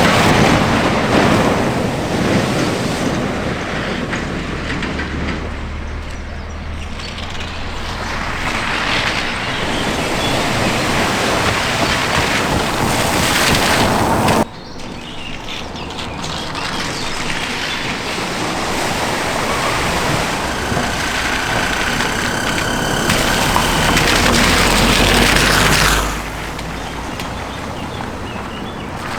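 Cars and other road vehicles driving through a flooded ford: engine noise mixed with the rush and splash of water, in clips joined by sudden cuts about halfway through and again near the end.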